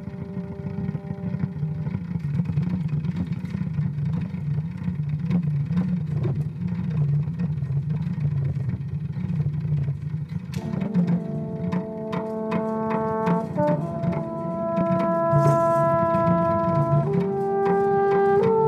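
Improvised French horn playing long held notes: one note stops about two seconds in, and from about ten seconds in a new series of held notes steps to different pitches a few times. Underneath runs a low, pulsing, looped drone with scattered clicks and taps.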